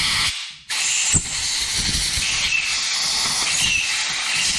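Compressed-air blow gun hissing into the passages of a Mikuni BS38 carburettor body to blow the airways and fuel ways clear: a short blast, a brief pause, then a long steady blast, with a single click about a second in.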